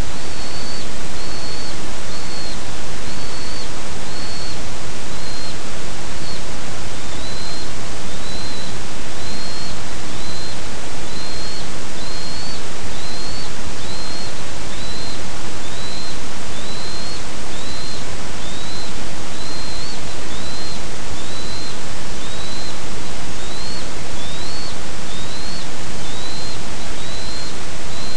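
A bald eagle calling over and over, short high-pitched notes about once a second, each rising then levelling off. A steady loud hiss lies under the calls.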